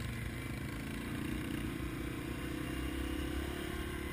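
Yamaha TW200's single-cylinder four-stroke engine running steadily at low trail speed, heard from the bike itself, over a steady low rumble.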